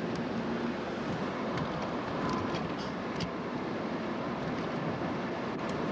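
Steady road noise of a moving car heard from inside the cabin, with a few light clicks.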